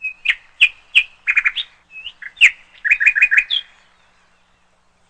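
A small bird chirping: a series of sharp, separate chirps and quick runs of three or four, with a couple of rising notes. It stops about four seconds in.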